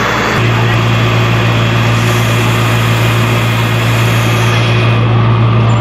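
Fire truck engine running steadily, a loud low hum that grows stronger about half a second in and then holds.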